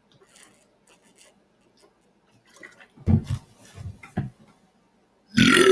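Faint handling noises and a few short low thuds, then a loud, long belch from a man full of carbonated water begins near the end.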